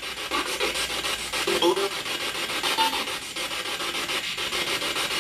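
Spirit box: a portable radio sweeping rapidly through stations and played through a small external speaker, giving harsh static chopped into quick, even pulses. Brief snatches of broadcast voice come through, which the investigators caption as "It's Roxy the owner" and take for a spirit's answer.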